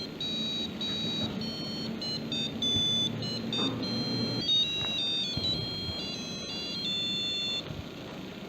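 Piezo buzzer driven by an Arduino Uno playing a programmed melody as a run of high, electronic beep-like notes stepping up and down in pitch. The tune stops about three-quarters of the way through.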